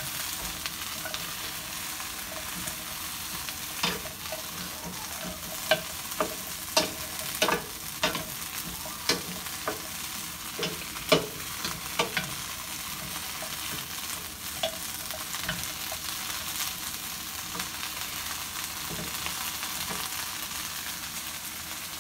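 Green beans, broccoli and Brussels sprouts sizzling in oil in a frying pan while being stirred with a wooden spatula. In the middle there is a run of sharp knocks and scrapes as the spatula strikes the pan, and a steady sizzle underneath.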